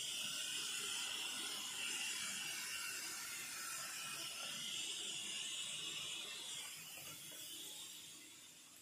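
Outdoor ambience in light drizzle: a steady hiss with a high, even buzz that stops about two-thirds of the way through, after which the sound fades away.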